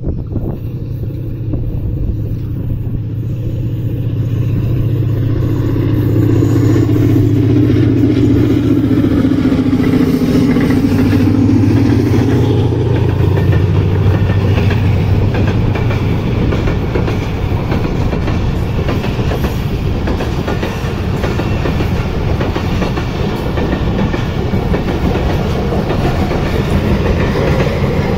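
Pakistan Railways ZCU30 diesel locomotive hauling a passenger express through the station. Its engine hum swells over the first few seconds and drops in pitch as it goes past, then the coaches follow with a steady rumble and clickety-clack of wheels on the rails.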